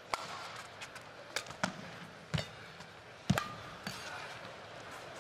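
Badminton rackets striking the shuttlecock in a singles rally: about six sharp cracks roughly a second apart. Short shoe squeaks on the court come after some of them.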